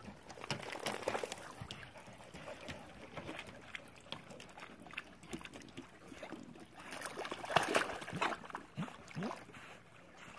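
Lake water sloshing and splashing against a wooden dock as dogs swim, with a louder run of splashes about seven seconds in as a second dog goes into the water and paddles off.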